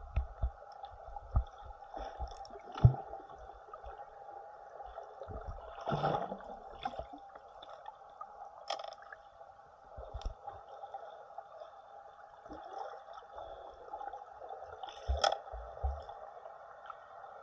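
Muffled underwater water sound heard through a submerged camera: a steady hiss-like hum with gurgling and bubbling, broken by irregular knocks and swishes. The sharpest knock comes about three seconds in, with another cluster near the end.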